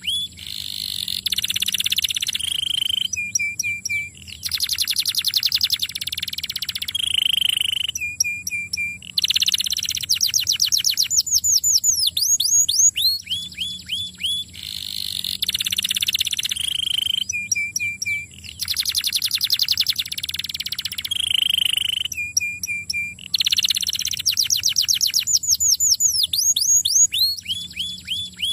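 Domestic canary singing continuously: long, fast rolling trills of repeated notes, runs of quick falling sweeps and short held tones, in phrases broken by brief pauses. The same sequence of phrases repeats about every thirteen seconds.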